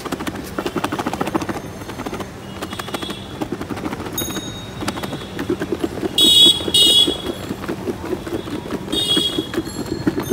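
Street traffic: vehicle horns honking, with two loud honks about six seconds in and another near nine seconds, over an engine running with a rapid, even pulsing and scattered clicks.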